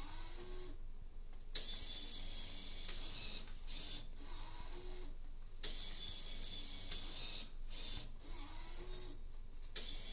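Banknote acceptor of an automatic payment machine drawing in 1,000-yen notes one after another: a mechanical whir in stretches broken by short pauses, with a few sharp clicks.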